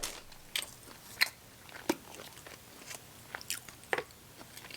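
A person chewing and biting chicken close to the microphone: a string of short, irregularly spaced soft crunches and wet mouth clicks.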